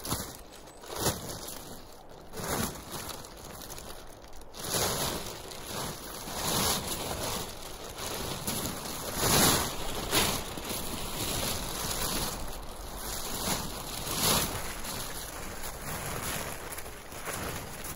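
Green plastic tarpaulin being shaken out and flung over a shelter frame: repeated flapping, rustling whooshes, the loudest about halfway through and again near fourteen seconds in.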